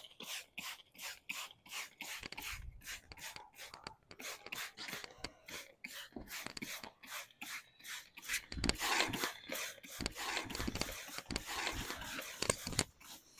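Scrubbing strokes on the painted body of a mini truck during a wash, a rhythmic rubbing about three strokes a second, getting louder and busier about two-thirds of the way through.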